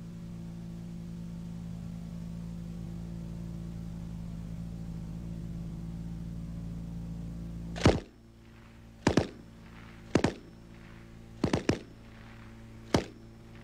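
Browning Automatic Rifle firing from its bipod in short bursts of one to three .30-06 rounds, about a second apart, beginning about eight seconds in. A steady low hum comes before the first burst.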